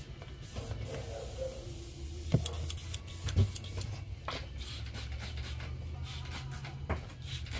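Handheld heat gun running with a steady low hum, blowing hot air over freshly airbrushed paint on a crankbait to heat-set it. A couple of light knocks from handling sound over it, a few seconds in.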